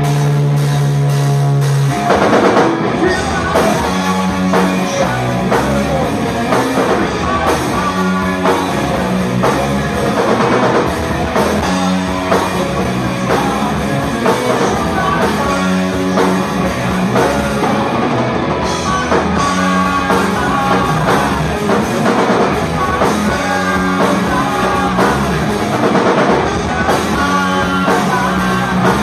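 Live rock band playing electric guitars and drum kit, loud and distorted. A held chord rings for the first two seconds, then the drums and full band come in.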